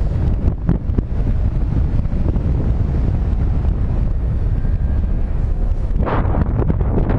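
Wind buffeting the camera microphone of a paraglider in flight: a steady, low, rumbling rush of air, with a brief louder, brighter rush near the end.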